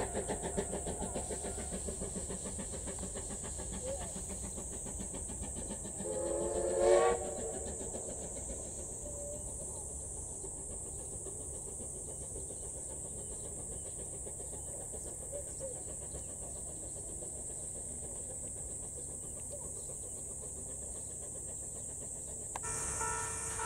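Steam whistle of the C11 steam tank locomotive giving one short blast about six seconds in, the loudest sound here. Before it, the receding train's rhythmic running fades out within the first second or so.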